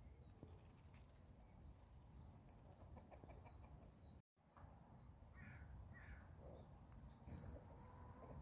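Faint calls of chickens: two short clucks about five and six seconds in, then a longer held note near the end, over a low background rumble. The sound drops out completely for a moment just after four seconds.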